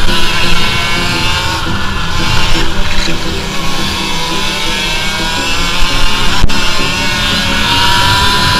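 Two-stroke kart engine heard onboard, its pitch rising and falling as it accelerates and lifts through the corners, with rock music playing over it.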